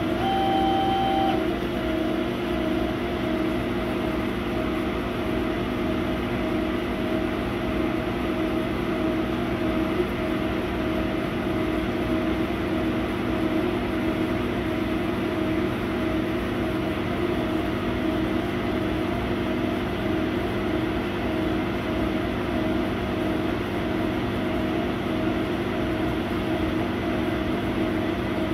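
A 100W laser cutter running as it cuts MDF: a steady machine hum with several held low tones over a whirring noise. A short higher tone sounds near the start.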